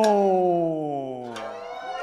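A man's voice drawing out the last syllable of a kabuki-style declamation as one long tone that slowly falls in pitch and fades, with a sharp knock about a second and a half in.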